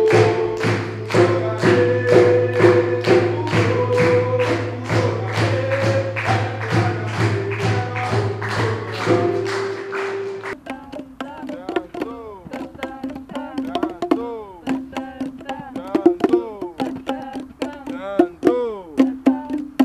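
Music with a steady drum beat over held notes and a low drone. About halfway through it changes suddenly to a group playing djembe hand drums, irregular hits with voices singing over them.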